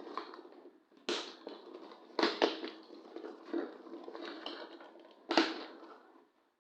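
Cardboard shipping carton being opened by hand: four sharp tearing sounds with rustling and crackling of packaging between them.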